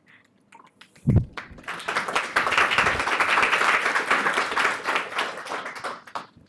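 Audience applauding: many hands clapping from about a second and a half in, dying away near the end. A low thump about a second in comes just before the applause.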